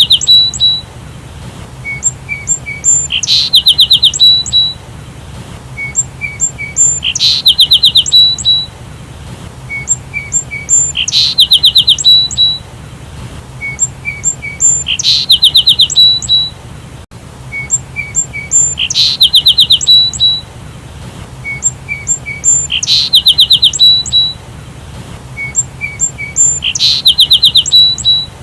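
Sparrow chirping in a repeating phrase: a few short, soft chirps, then a fast run of loud, high chirps, about every four seconds.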